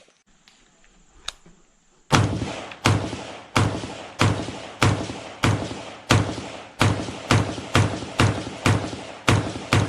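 Rapid, evenly paced string of gunshots, about one and a half shots a second, starting about two seconds in after a single click.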